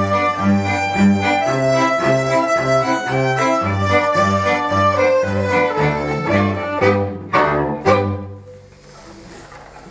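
Folk band of two fiddles, an accordion and a cello playing an instrumental tune, the cello bowing an even pulsing bass. The tune ends about eight seconds in with two sharp closing strokes and a short final chord.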